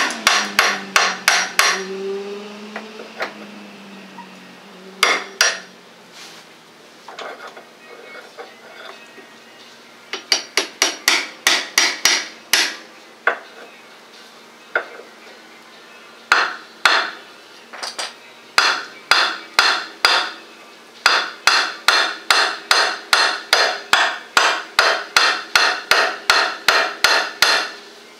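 Ball-peen hammer striking the head of a rusted, seized steel lower control arm bolt: runs of sharp ringing metal-on-metal blows, about three a second, with short pauses between runs.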